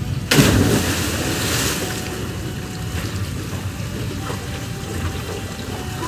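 A person jumping feet-first into a deep well: a loud splash about a third of a second in, followed by churning water that settles into a lower wash.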